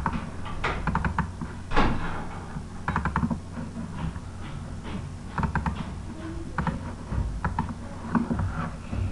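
Scattered clicking at a computer, in quick pairs and short runs, over a low steady hum.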